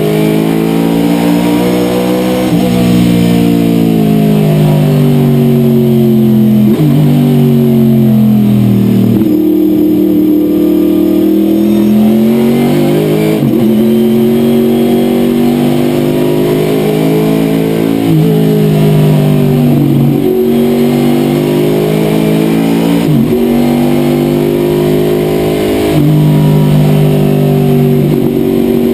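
Corvette C6 race car's V8 engine under racing load, heard from inside the cockpit. The note climbs and falls continually as the car is driven up and down through the gears, with a sharp break at each of about eight gear changes.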